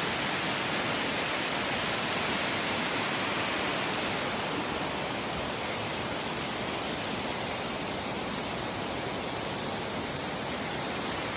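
Steady roar of a waterfall, an even rush of falling water that eases slightly about four seconds in.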